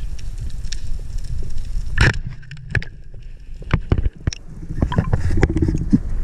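Underwater, a speargun fires with one sharp crack about two seconds in, followed by scattered clicks and knocks from the loose spear shaft and line, over a steady low rumble of water.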